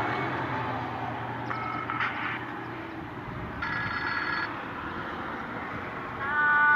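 A Nokia 3710 Fold ringtone playing through a Nokia 150 phone's speaker: short electronic chords of several steady tones, about a second and a half in, around four seconds in and louder near the end, over a steady hiss.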